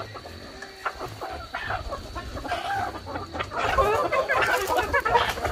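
Chickens clucking, the calls growing louder and busier about halfway through.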